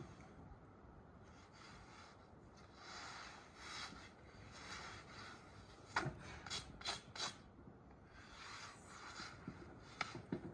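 Thin flatbread rustling and scraping as it is turned and slid over a hot domed metal griddle, in soft rasping swells. A few sharp clicks come around the middle and one more near the end.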